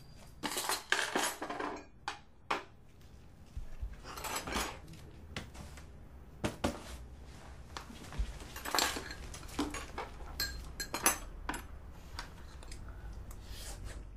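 Dishes and cutlery clattering and clinking: a dense burst of clatter about half a second in, then scattered clinks and knocks every second or so.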